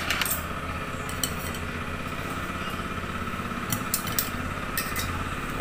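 A few light, scattered clicks and taps of a kitchen knife against a cutting board and bowl as fruit is cut, over a steady low hum.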